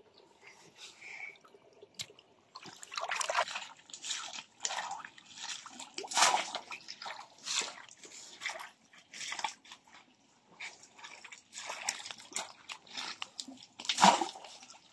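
Water splashing and sloshing in a shallow rocky stream, in irregular bursts that start about two and a half seconds in.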